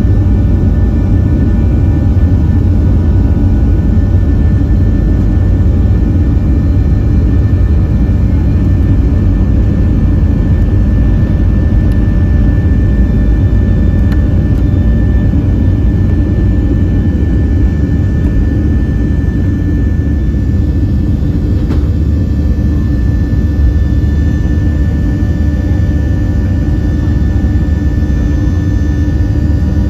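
Boeing 737-700's CFM56-7B turbofan engines at takeoff thrust during the takeoff roll and climb-out, heard from inside the cabin over the wing: a loud, steady low rumble with steady whining tones above it.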